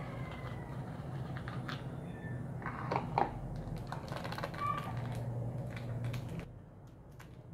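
Light clicks and knocks of plastic kitchenware being handled: a plastic funnel and measuring jug moved and set down on a plastic basin. A steady low hum runs underneath and stops about six and a half seconds in.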